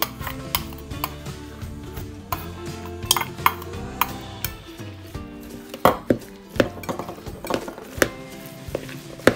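A metal spoon clinking and scraping against a small metal bowl as seasonings are scraped out onto ground pork, a dozen or so sharp clinks at irregular intervals, over steady background music.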